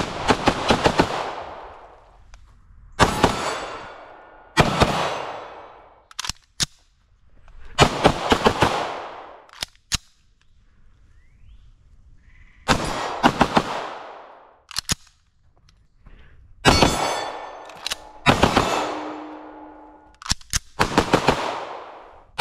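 Ported 9mm CZ Shadow 2 Compact pistol fired in rapid strings of a few shots each, with short pauses between strings and an echo trailing each string.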